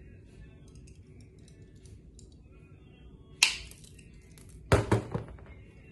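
Crimping tool's cutter blade snipping the ordered twisted-pair LAN cable wires flush: one sharp snap about three and a half seconds in, then two or three quicker clacks about a second later, with faint small handling clicks before.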